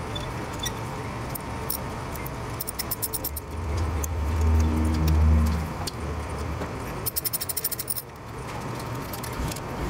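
Worm-drive hose clamp being tightened with a nut driver around an exhaust pipe, in several short bursts of rapid metallic clicking. A low hum swells for about two seconds in the middle.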